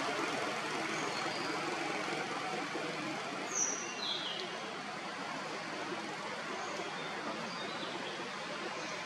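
Steady outdoor background hiss with a few short, high bird chirps; the clearest two come about three and a half and four seconds in.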